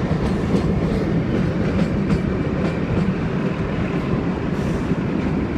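Shimla toy train running on its narrow-gauge line: a steady rumble of wheels and carriages, with a few scattered clicks from the rail joints.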